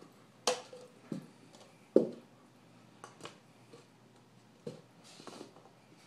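Upturned cups being shuffled on a rug: several sharp taps and knocks as they are picked up and set down, with a short scuffing slide a little after five seconds.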